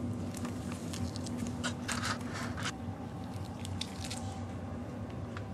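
Scattered light clicks, scuffs and rustles, with a cluster of louder crunchy rustles about two seconds in, as baby Holland lop rabbits move about on a playpen mat and nibble around a wicker tunnel, over a steady low hum.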